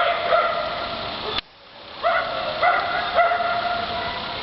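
Repeated short animal calls, each a clear pitched cry of about half a second, several in a row. The sound drops out abruptly about a second and a half in, then the calls resume.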